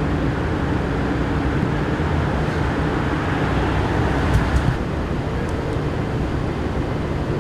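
Steady city street noise with the low hum of a running vehicle engine. A few faint clicks come about four and a half seconds in.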